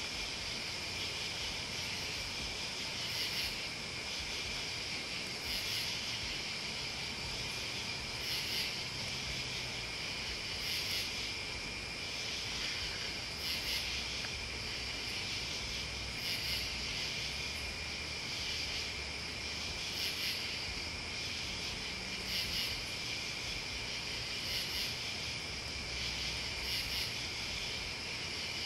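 Night insects calling: crickets keep up a steady high trill, while louder pulsing calls repeat about every two and a half seconds.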